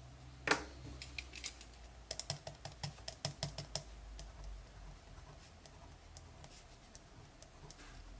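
Pen tip tapping on paper, stippling dots to mark concrete in a drawn section: one sharp tap about half a second in, then a quick run of taps for a couple of seconds, then a few faint ones.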